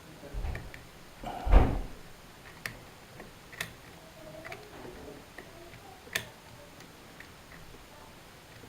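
Small metallic clicks and ticks of a curtain pick and tension tool working the levers of an Era Fortress lever deadbolt. There is a louder rattling knock about one and a half seconds in, and sharp single clicks at about three and a half and six seconds.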